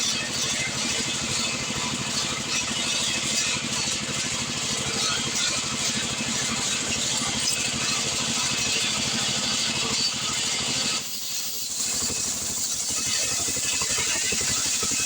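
Stihl 070 chainsaw, a large two-stroke, running at high revs while milling through an acacia hardwood log. The engine dips briefly about two-thirds of the way through, then picks back up.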